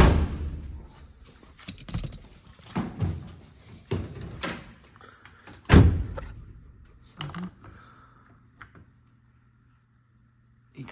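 A series of irregular knocks and thuds, about six of them, the loudest about six seconds in, then it goes nearly quiet.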